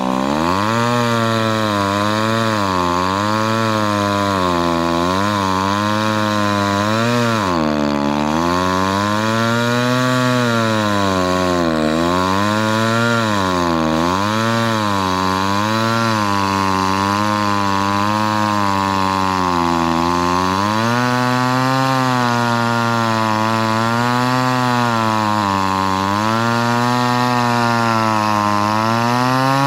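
A circa-1980 Kioritz Echo CS-315 chainsaw, with a 30.1 cc two-stroke engine, cutting through a log. The engine runs steadily, and its pitch keeps dipping and recovering every second or two as the chain loads up in the wood.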